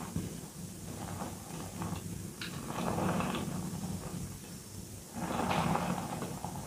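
Hands crushing and mashing crumbly reformed gym chalk in a bowl of loose chalk powder: soft crunching and powdery rustling, swelling louder about three seconds in and again near the end.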